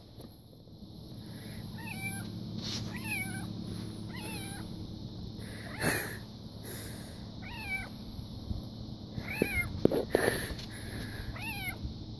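Kitten meowing over and over for attention: about six short, high meows that drop in pitch, a second or two apart.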